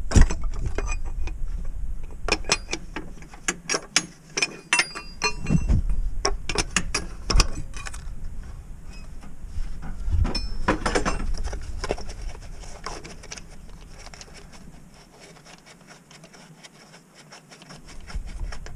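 Sharp metallic clicks and clinks of hand tools and metal parts being worked in an engine bay: a quick, irregular run of clicks over the first several seconds, another cluster about ten seconds in, then quieter handling.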